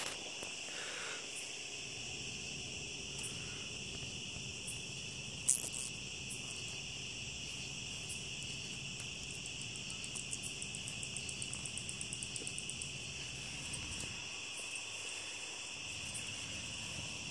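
Steady chorus of night insects, crickets, trilling high and continuous. A single sharp click comes about five and a half seconds in, and a fast run of faint ticks follows a few seconds later.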